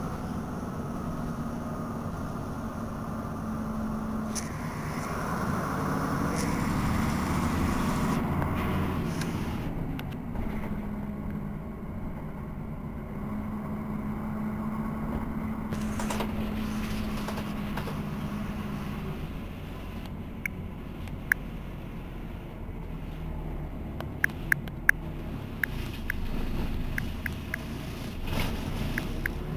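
1978 Berliet PR100 MI city bus's diesel engine running steadily while the bus stands at a stop, swelling in loudness for a few seconds about seven seconds in. A few short sharp clicks come in the last third.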